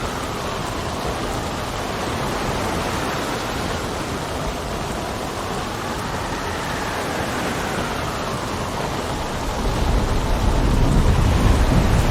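Sea storm: steady heavy rain with a slowly wavering wind howl, and a deep rumble of thunder that builds up late on and is loudest near the end.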